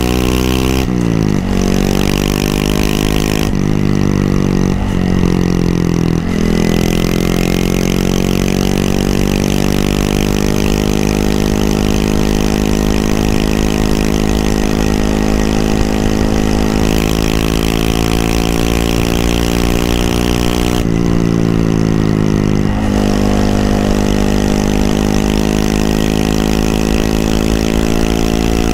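Honda Monkey 125's single-cylinder engine running on the move. The revs fall at the start, dip briefly three times a few seconds in, then hold steady for a long stretch. About 21 seconds in they fall again before settling.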